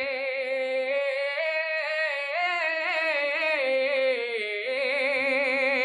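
A man singing a naat, an Urdu devotional poem in praise of the Prophet. He draws one syllable out into a long melismatic line without clear words, its pitch wavering and gliding up and down.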